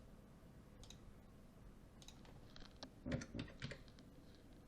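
Faint, scattered keystrokes on a computer keyboard, with a quick flurry of key presses about three seconds in.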